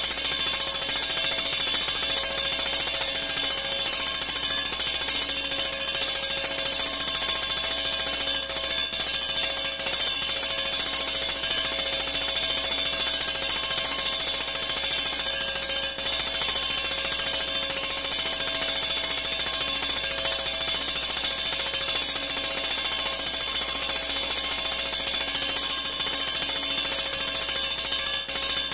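Old school hand bell being rung continuously and fast, the clapper striking over and over in a steady, loud jangle. There are a few momentary breaks in the ringing.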